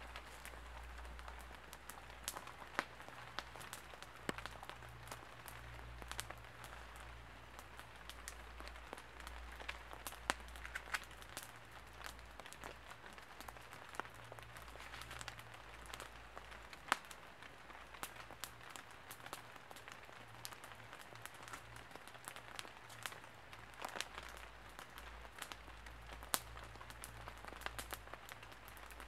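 Small wood campfire crackling, with many irregular sharp pops over a soft steady hiss.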